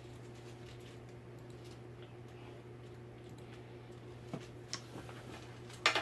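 A steady low hum with a few light clicks about four seconds in, then a sharper, louder click near the end, like small parts being handled.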